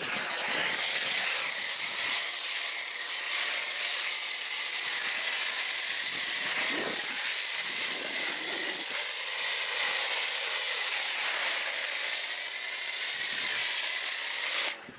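Foam cannon on a pressure washer spraying snow foam: a loud, steady hiss that cuts off abruptly near the end.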